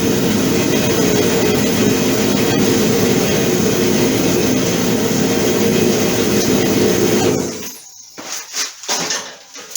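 A garage heater running with a loud, steady rumble that stops about three-quarters of the way through, leaving a few light knocks and clatter.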